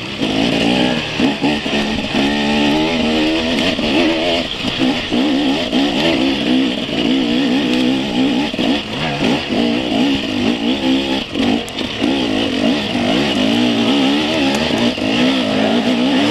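Enduro motorcycle engine revving up and down under load, climbing a steep dirt trail, heard close from the rider's own bike.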